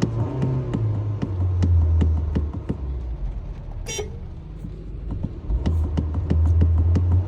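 Honda HR-V's car horn honking in long blasts, with a quieter gap in the middle. A rapid, even ticking runs underneath.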